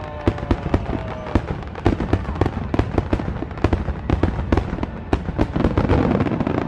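A fireworks display going off: a rapid, irregular string of sharp pops and bangs, several a second.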